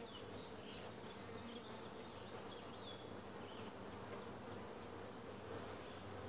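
Honey bees buzzing steadily over an open hive frame box: a faint, even hum.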